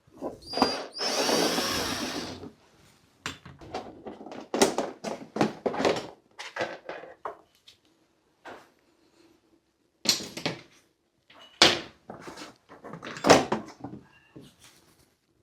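A power drill or driver runs for about a second and a half near the start, then irregular knocks, clicks and clatter of handling parts and screws while a bathroom heater unit is taken apart.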